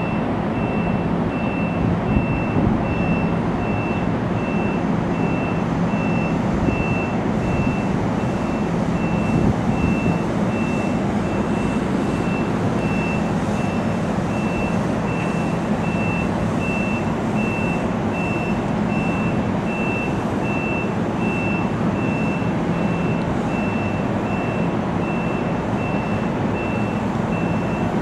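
NJ Transit multilevel commuter train standing at the platform, its equipment humming steadily, with a high electronic beep repeating about once a second.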